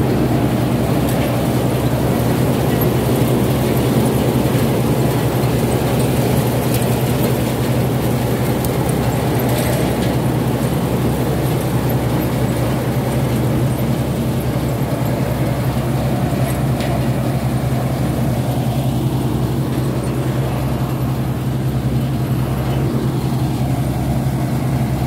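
Dragão coffee ground-collector (recolhedora) working a coffee row, its machinery running with a steady low hum.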